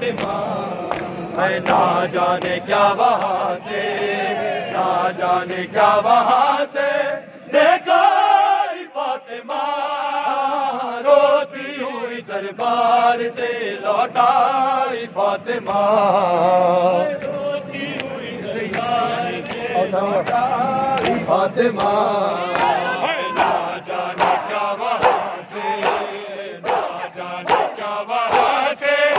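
A group of men chanting a noha, a Shia lament, with many sharp slaps of hands beating on chests (matam) sounding through the chant.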